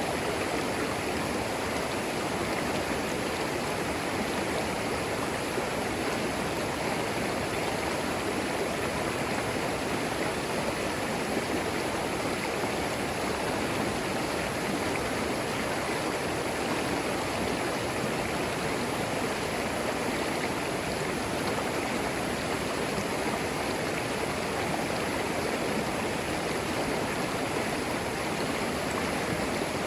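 Clear forest creek flowing over and between stones, a steady, even rush and babble of water.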